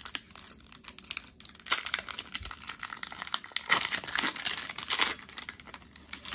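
Foil wrapper of a Pokémon TCG booster pack crinkling in the hands as it is handled and opened, in irregular crackling bursts, busiest about two seconds in and again from the middle on.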